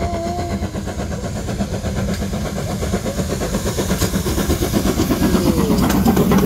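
BR Standard Class 2MT steam locomotive 78018 working a train, its exhaust chuffing in a rapid, steady beat and growing louder as it draws level and passes close by near the end.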